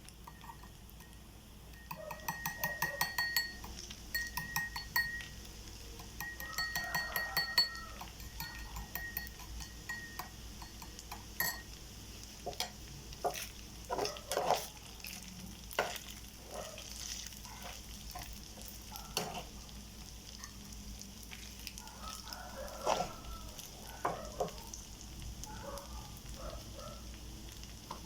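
Rice frying in a hot pan with a steady sizzle while a spatula stirs and scrapes it. There are runs of rapid scraping strokes for the first several seconds, then scattered knocks of the spatula against the pan.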